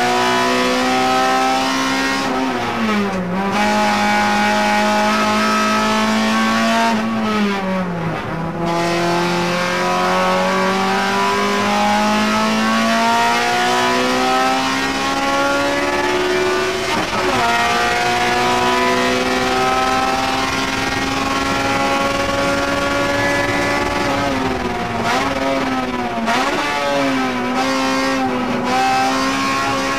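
A stock Honda Civic EG6's four-cylinder engine, heard from inside the cabin, revving hard at full throttle. The pitch falls sharply about three and eight seconds in and dips several times near the end. Otherwise it climbs slowly and steadily through long pulls.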